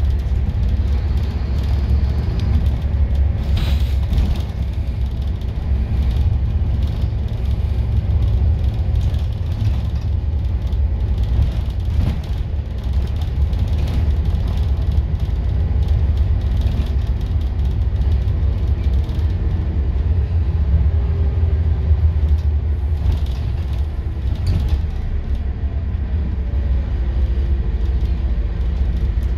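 Scania N230UD double-decker bus heard from the upper deck while under way: a steady low rumble from its five-cylinder 9-litre diesel and the road, with faint whines that slide down in pitch as the speed changes and a few short knocks from the body.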